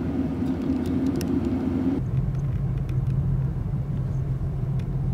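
Car driving: steady engine and road rumble, its low hum dropping suddenly in pitch about two seconds in.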